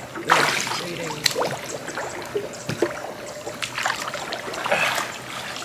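Water splashing around a small boat, with a loud splash just after the start and another about five seconds in, and scattered knocks in between.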